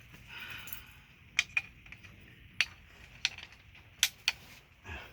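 Light metallic clicks and clinks, about six scattered sharp ones, as timing chain parts and a chain guide are handled and fitted on the engine.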